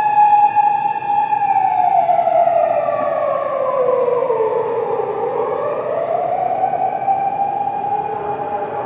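Emergency vehicle's wailing siren. It holds a high steady pitch, slides slowly down for several seconds, then climbs back up and holds high again.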